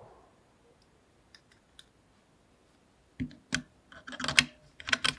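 A run of sharp metallic clicks and dull knocks, starting about three seconds in, from hands working the action of a .22 rimfire rifle as it is loaded and readied to fire.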